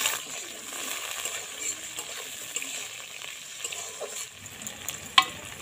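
Sliced onions sizzling in hot oil in a metal kadai as a metal spatula stirs them, with one sharp clink of the spatula against the pan about five seconds in.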